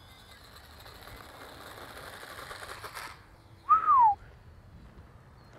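Faint whine of the twin small electric motors and propellers of an E-flite UMX Twin Otter RC plane at takeoff power, rising slightly in pitch, then cutting off suddenly about three seconds in. Shortly after, one short, loud whistle that glides down in pitch.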